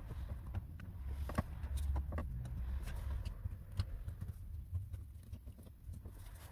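Scattered light clicks and knocks of hands handling a car door speaker and its wiring, over a steady low rumble.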